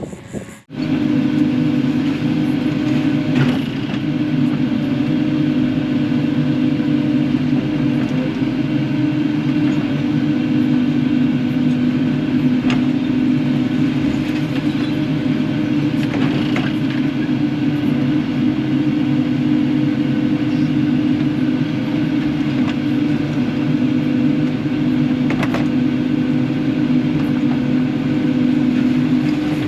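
Kubota KX080-4 excavator's diesel engine running steadily, a constant drone with no revving, with a few faint knocks.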